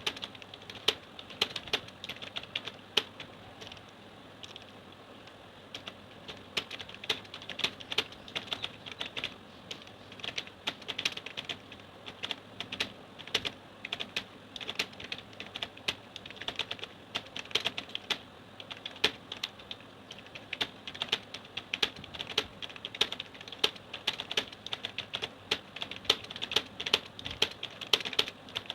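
Computer keyboard being typed on continuously during a timed typing test at about 32 words per minute, a rapid, uneven run of key clicks with a brief lull about four seconds in.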